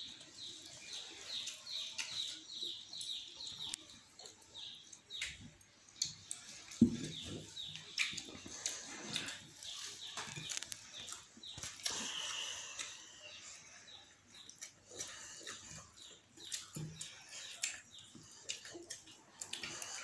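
Close-up chewing and lip-smacking from two people eating rice and curry with their hands, a quick run of wet smacks at the start and scattered smacks after. A single thump about seven seconds in is the loudest sound.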